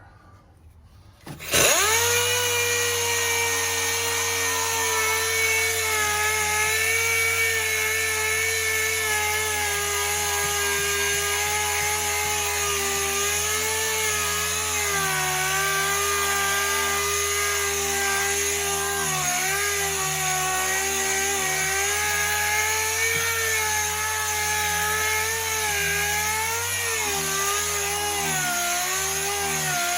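Power sander starting about a second and a half in and running steadily against a car body panel, taking spray-can primer and some paint off the bare panel. Its pitch sags and wavers at times as it is pressed into the work.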